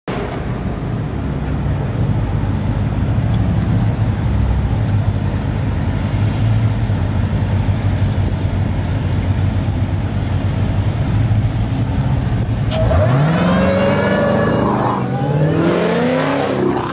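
Several Dodge muscle cars idling together with a deep, steady rumble, then revving and pulling away about thirteen seconds in, their engine notes climbing and falling.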